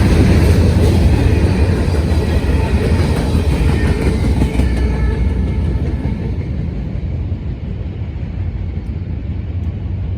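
Freight cars of a long CSX manifest train rolling past: a steady low rumble of wheels on rail that slowly fades.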